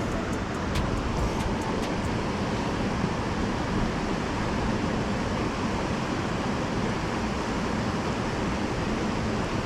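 Steady rush of creek water pouring over a spillway, with a few faint ticks in the first couple of seconds.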